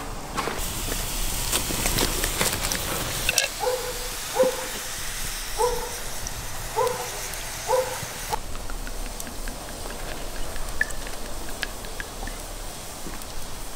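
A dog barking six times, about once a second, after a few seconds of hissing and crackling from a charcoal fire.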